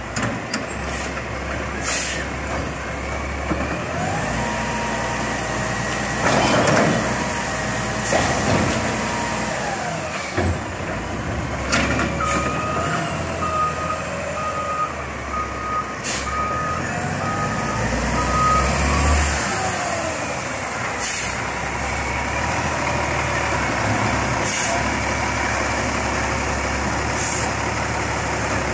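Heavy truck's diesel engine running while it maneuvers, with several short sharp air-brake hisses. A back-up alarm beeps steadily, roughly once a second, for several seconds midway.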